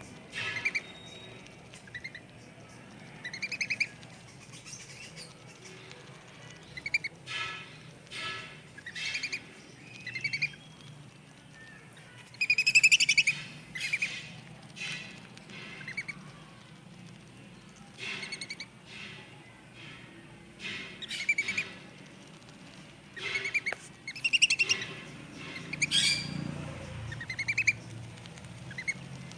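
Birds chirping and calling in short, repeated calls every second or two, with a louder run of calls about thirteen seconds in.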